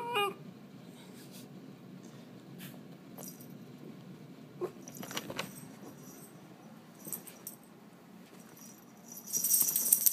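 Shiba Inu puppy giving a short wavering yowl right at the start. A few soft knocks follow, then a loud metallic jingling near the end.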